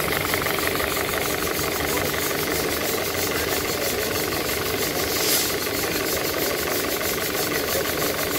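An engine running steadily with a fast, even knocking beat. A short hiss comes about five seconds in.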